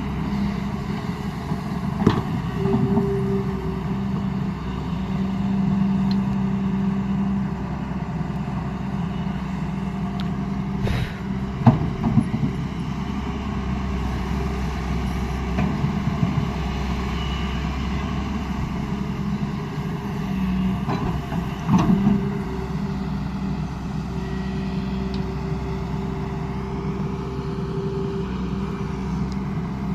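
Hyundai R210 Smart Plus excavator's diesel engine running steadily under working load. A few sharp knocks cut through it: one about two seconds in, a cluster near the middle, and another pair about two-thirds of the way through.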